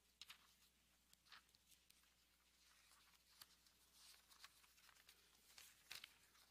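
Near silence: faint, scattered rustles and soft ticks of Bible pages being leafed through, over a low steady hum.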